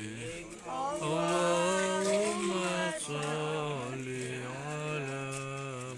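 A man's voice chanting in long held, wavering notes that step up and down in pitch, in phrases with short breaks between them, loudest about a second in.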